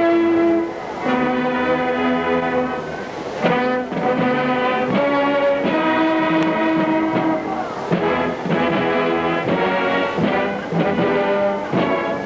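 High school marching band playing: the brass holds long chords, then from about three and a half seconds in breaks into shorter, punchy accented notes with drum hits.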